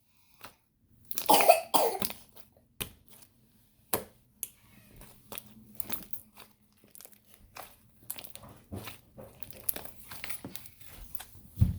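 Slime being squished and stretched by hand, giving scattered small sticky clicks and pops, with one short cough-like burst about a second in.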